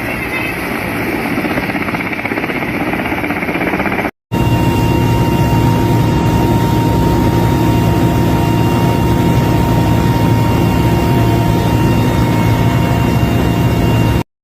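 Helicopter flying overhead, its rotor and turbine giving a loud, steady drone. The sound breaks off for a moment about four seconds in, then comes back louder with a steady whine over the rotor noise.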